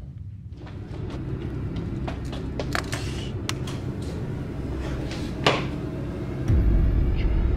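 Several sharp, scattered knocks and clicks over a steady low hum. A deep low boom comes in near the end and holds, louder than anything before it.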